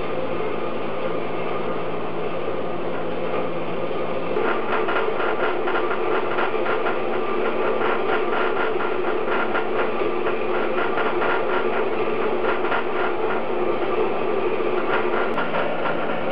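Small metal-cutting bandsaw running in the vertical position, its blade cutting slowly through a thick exhaust flange plate. About four seconds in the cut gets rougher, with a fast, even chatter of teeth on metal.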